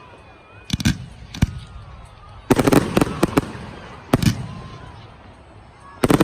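Fireworks bursting overhead with sharp bangs: two about a second in, a quick cluster of several near the middle, one more a little after, and a fresh volley starting near the end.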